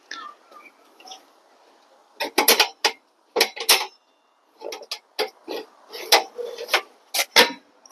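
Quick clusters of clicks, rattles and knocks from a portable metal-framed workbench with wooden top planks being handled and worked.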